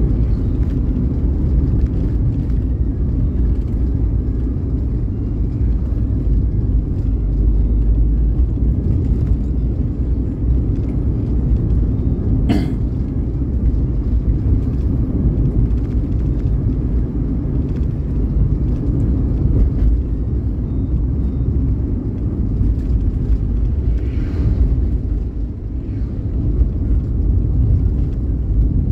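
Steady low road rumble of a vehicle driving, engine and tyre noise, with a single sharp click about twelve seconds in.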